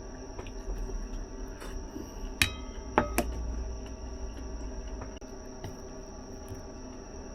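Tableware clinking three times, a glass or dish knocked lightly, each strike ringing briefly, the last two close together.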